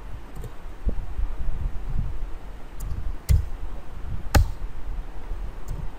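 A few scattered computer keyboard and mouse clicks during text editing, one sharper click about four seconds in, over a low background rumble.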